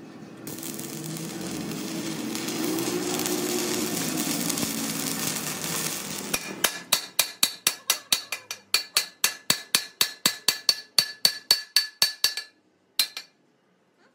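A steady rushing noise for about six seconds. Then a hammer strikes the steel axle housing about four times a second, each blow ringing, as the red-hot fresh weld over the crack is hammered. One last strike follows after a short pause.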